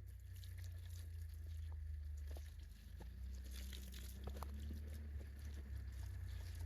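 Campfire of damp wood crackling, with irregular small snaps and pops over a steady low rumble.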